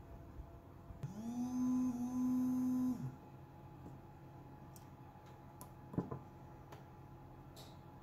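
A small cylindrical vibration motor with an off-centre weight, mounted on a prototype circuit board, buzzes steadily at a fixed pitch. It spins up within a fraction of a second about a second in, runs for about two seconds, and stops just after three seconds. A few sharp clicks follow, the strongest about six seconds in.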